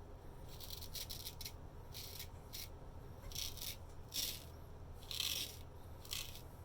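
Antique straight razor scraping through lathered stubble on the neck in about ten short strokes, each a brief high-pitched rasp, the blade cutting cleanly through the hair.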